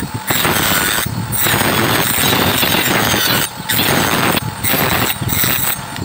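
Bamboo hoop being sanded against a sanding disc spun by a drill press: a loud, even grinding noise with several brief breaks.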